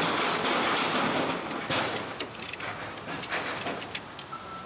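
Sharp metal clicks of a wrench working on a rear brake caliper bracket bolt, over a steady hiss of background construction noise turned down low that fades after the first second or so.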